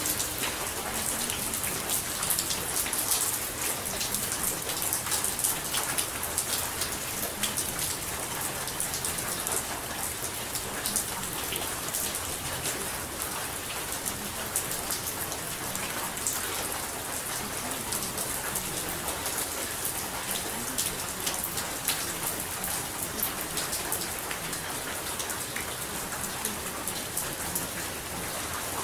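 Steady rain, a dense patter of many small drops over an even hiss.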